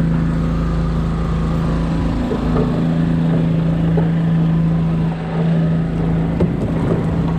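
A small engine running at a constant speed, a steady drone, with a few light knocks over it.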